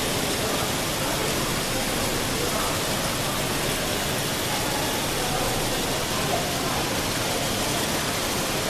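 Steady, even whir and rush of a running automatic silk-reeling machine, with no distinct rhythm or knocks.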